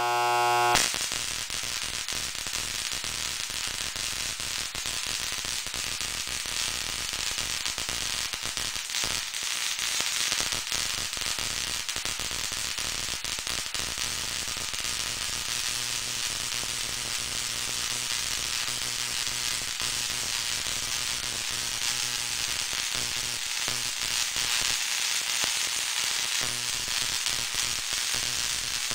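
Kinraide-type pancake Tesla coil running, its spark discharge making a dense, continuous crackle that starts about a second in and stops near the end, with a low mains hum underneath.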